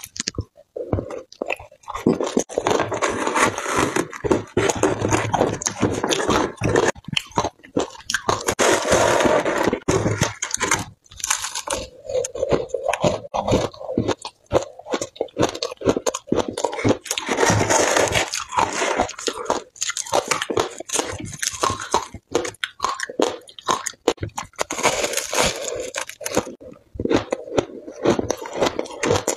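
Ice being chewed up close to the microphone: loud, dense crunching and crackling of shaved ice and chunks of frozen ice, with short pauses between mouthfuls.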